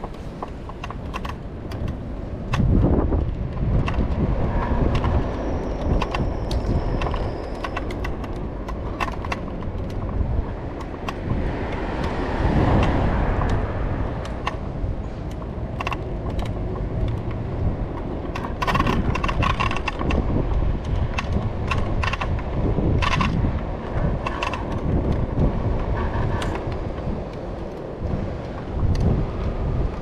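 Rumble of a Bird electric scooter's small wheels rolling over rough asphalt, with wind buffeting the microphone and frequent clicks and rattles from the scooter jolting over bumps.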